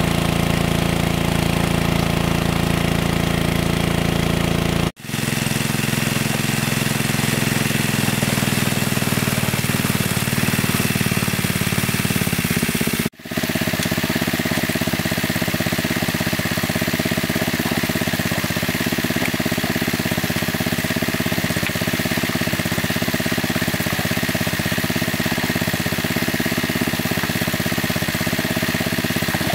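Engine of a large water pump running steadily, drawing water out of a lake. The sound cuts out for an instant about five seconds in and again about thirteen seconds in, then carries on at a slightly different pitch.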